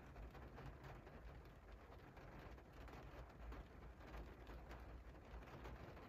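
Faint cold rain pattering on a window pane: a steady hiss of many small, irregular drop taps on the glass, over a low rumble.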